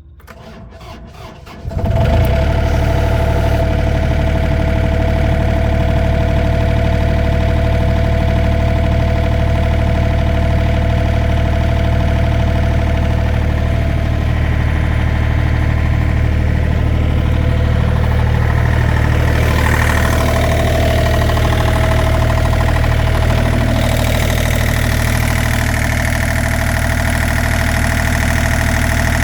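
A 2006 John Deere 35D mini excavator's small Yanmar diesel, started cold after the glow plugs: it cranks briefly on the starter, catches about two seconds in, and then runs steadily at idle.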